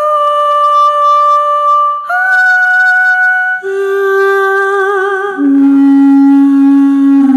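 Sampled instrument patch from the Ethera Gold Atlantis Kontakt library playing four long held notes in turn, a step up and then two lower notes, with a breathy, woodwind- or voice-like tone and vibrato on the later notes.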